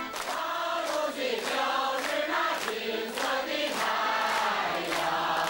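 A choir of men and women singing in unison, over a steady beat of about two strokes a second.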